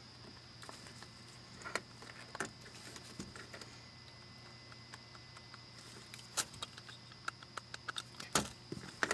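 Plastic wiring-harness connectors being worked into a Chevrolet VSS buffer (DRAC) module: scattered light plastic clicks and rattles, with a few sharper clicks near the end as the connectors are pushed home.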